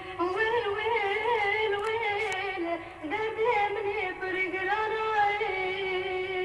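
A solo voice singing a slow song in long held notes with wavering, ornamented turns, pausing briefly for breath about three seconds in.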